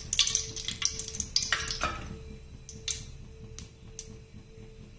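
A few light metallic clicks and taps from an aluminium kadai on a gas stove, over a faint steady hum, with a soft hiss that fades over the first couple of seconds.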